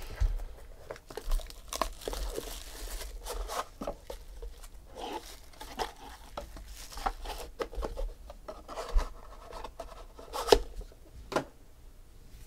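Plastic shrink wrap being torn off a sealed Topps Supreme baseball card box and crinkled in the hands, with cardboard rustling. A few sharp knocks come near the end, the loudest about ten and a half seconds in.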